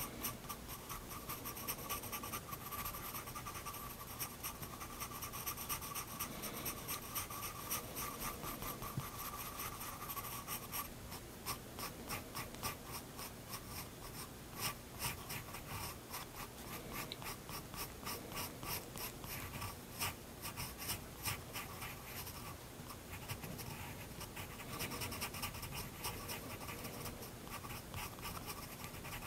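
Soft 7B graphite of a Prismacolor Turquoise pencil scratching on sketchbook paper in small, quick strokes while shading tiny circles. It is a steady scribble at first, then breaks into separate short strokes and taps about a third of the way in, and turns steadier again near the end.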